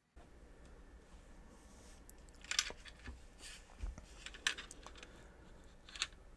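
Small 3D-printed plastic parts and a nut being handled on a workbench: a few light clicks and taps about a second apart, the loudest about two and a half seconds in.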